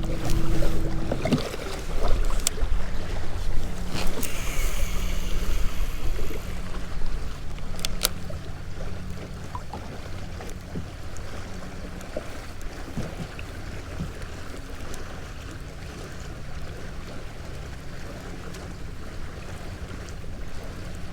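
Wind buffeting the microphone and water lapping around a fishing kayak, with a low steady hum and a few sharp clicks, louder for the first several seconds and quieter after.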